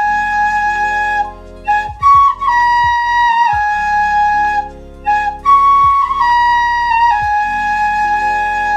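Small three-hole high-fired ceramic flute being played: three short phrases, each stepping down through a few notes, with brief breath gaps between them.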